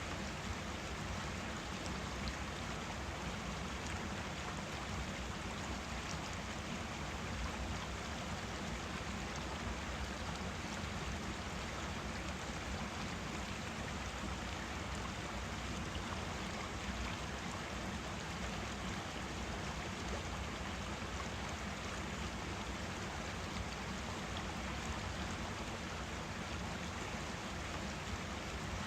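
Forest stream running: a steady, even rush of flowing water.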